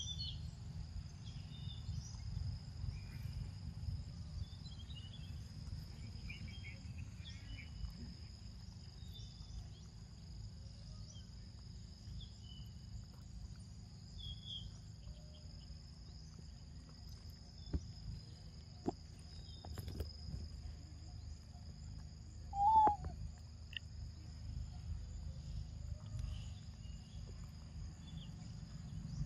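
Outdoor ambience of insects making a steady high-pitched drone over a low rumble, with a few faint clicks. A short call about 23 seconds in is the loudest sound.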